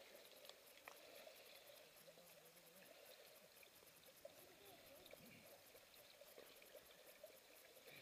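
Near silence, with faint sloshing of water as people wade through a creek.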